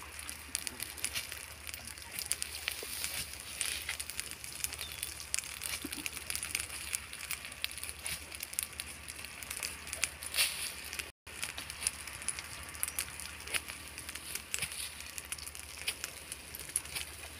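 Dry grass and brush burning, crackling with a dense, irregular run of small sharp pops and snaps.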